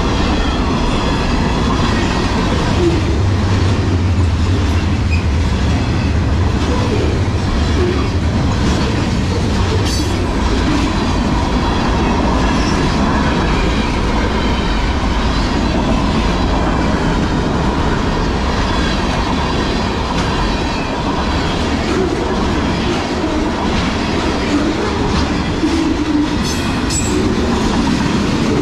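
Freight train cars rolling past at a road grade crossing: a steady rumble of steel wheels on the rails with clacking over the rail joints.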